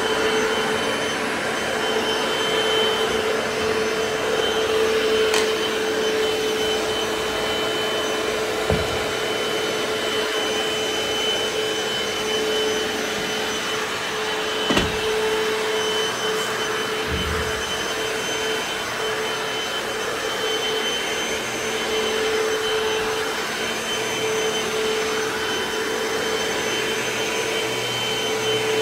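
Hoover FloorMate hard-floor washer running steadily over a wood floor: an even motor and suction hum with a constant whine, broken by a few short knocks.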